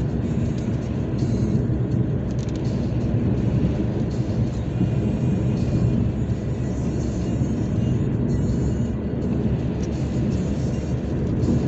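Steady road and engine rumble heard from inside a moving car, mostly deep with a lighter hiss above it.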